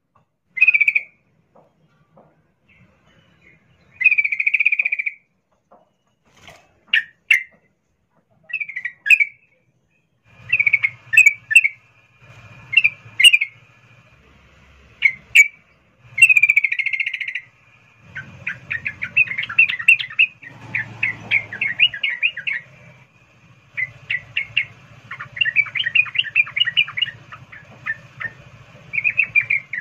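Yellow-vented bulbul calling: short separate chirping phrases at first, then from about halfway on long rapid rolling trills. This is a female's breeding-condition 'ngerol' call to a male.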